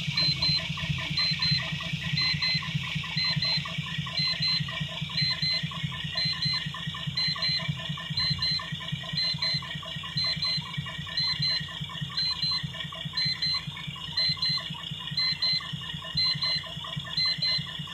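Volvo FH truck's diesel engine running steadily at idle after a wiring fault that kept it from starting was repaired. A short electronic beep repeats about once a second over the engine.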